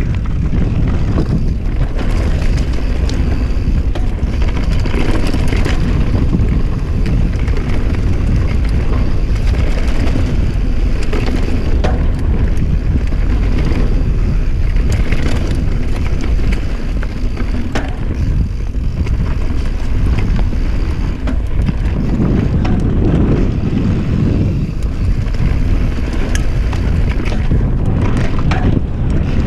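Mountain bike descending a dirt singletrack at speed: wind rumbling over the action camera's microphone, tyres rolling over dirt and leaf litter, and the bike rattling and knocking over bumps.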